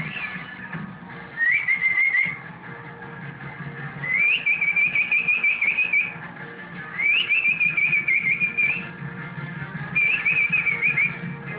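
High warbling whistling in four phrases, each opening with an upward swoop and then trilling on one pitch for one to two seconds, over a steady low hum.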